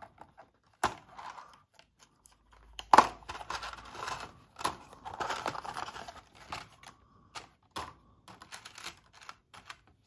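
A stiff clear-plastic blister pack being opened by hand: the plastic clicks and crackles as the card backing is peeled away, with a sharp snap about three seconds in.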